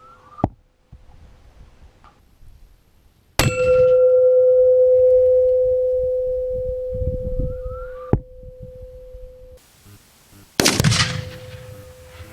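Half a pound of Tennessee Exploding Targets binary explosive detonating in a bowling ball launcher: one sudden, loud blast about three seconds in, followed by a clanging, ringing tone that fades away over several seconds. Small sharp cracks come before and after the blast, and a second heavy impact comes near the end.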